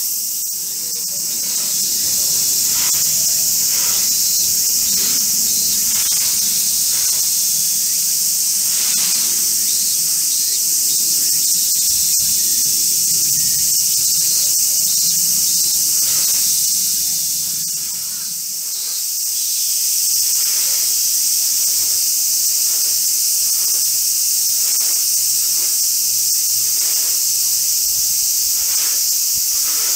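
Loud, steady chorus of cicadas buzzing, easing briefly about two-thirds of the way through.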